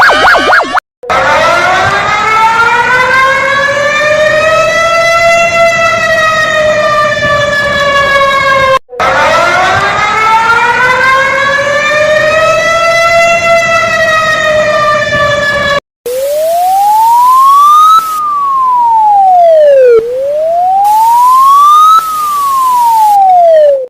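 Emergency alarm sirens, played loud. After a brief fast warble, a siren with a full, many-toned sound wails slowly up and then down, twice, each rise and fall lasting about eight seconds. It cuts off sharply about sixteen seconds in, and a thin, pure-toned siren takes over, sweeping up and down about every four seconds.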